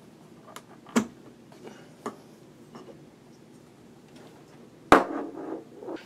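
A few light clicks and knocks as a power cord is handled and pulled out of the back of an iMac, then one sharp, loud knock about five seconds in, followed by a second of rustling handling sound.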